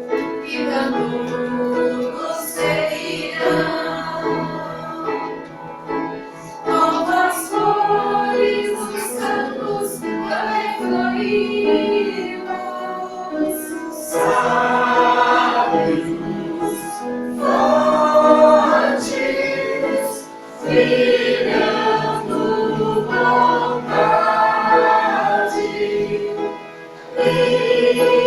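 Choir singing a song with full-voiced sustained phrases, separated by brief breaths.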